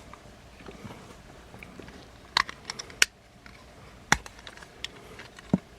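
Hard plastic parts of a Transformers Legacy Motormaster action figure clicking as they are unpegged and handled: a handful of sharp clicks, two close together near the middle, over faint rustling of handling.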